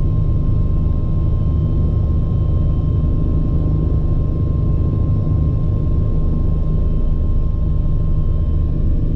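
Bell 429 helicopter's twin turboshaft engines and main rotor running steadily: a loud, even low drone with a thin steady whine above it.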